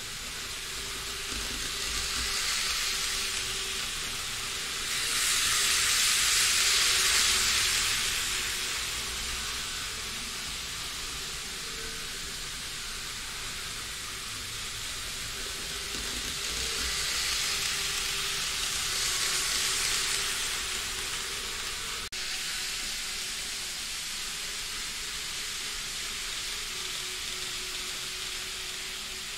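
N gauge model trains running on a layout: a steady hiss of small motors and wheels on the track that swells louder twice as trains pass close by, with a faint steady hum underneath.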